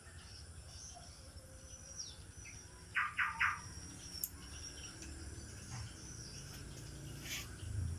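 Ford Ranger's Mazda WL diesel engine running at idle as a low, even rumble, the engine in which the owner is still hunting the cause of a knock after a replacement cylinder head. Birds chirp over it, with a quick run of three chirps about three seconds in.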